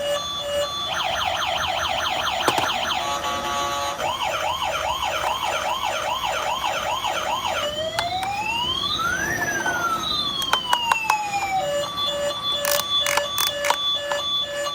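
Electronic toy siren playing a run of sound-effect patterns. Even beeping gives way about a second in to a fast warble, then from about four seconds to a slower wail, then to long rising and falling glides. Near the end it returns to beeping, with a few clicks.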